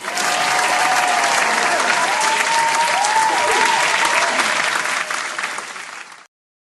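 Stock crowd-applause sound effect: dense clapping with some cheering voices, cutting in abruptly and fading out near the end.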